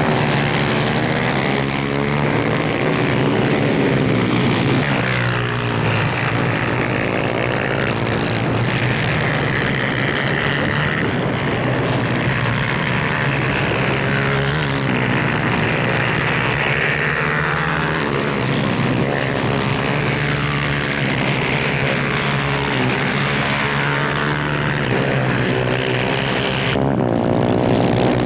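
Several 250cc superkart engines racing together, each revving up and down so their high-pitched notes rise, fall and overlap without a break.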